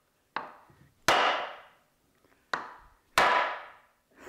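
Hammer blows struck through a piece of wood to drive a seized swivel head off an Elliott 10M metal shaper. Twice a light tap is followed by a heavy blow, and each heavy blow rings on for most of a second. The part is stuck fast and not yet coming free.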